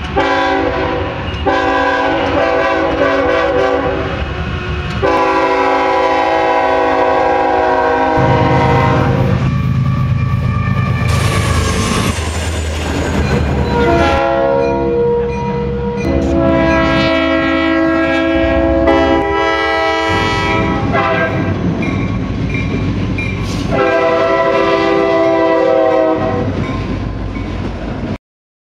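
Diesel locomotive air horn sounding a series of long multi-note blasts, some held for about three seconds, with a stretch of engine rumble and rail noise in the middle as a train passes. The sound cuts off abruptly just before the end.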